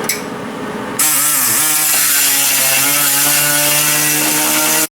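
A handheld power tool cutting or grinding sheet metal starts about a second in and runs loudly with a steady whine and a hiss; its pitch sags briefly under load, then holds. The sound stops abruptly near the end.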